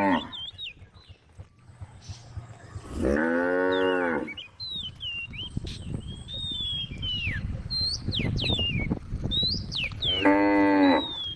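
A cow mooing twice, each a long call of a little over a second, the first about three seconds in and the second near the end. Faint high chirps come between the calls.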